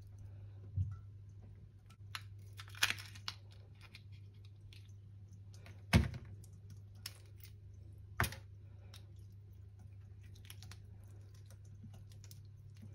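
Irregular clicks and knocks of hands working with kitchen things, with four louder knocks among them, over a steady low hum.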